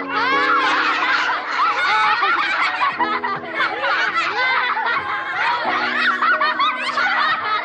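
A group of boys laughing and giggling together, many voices overlapping, over background music with sustained chords that change every few seconds.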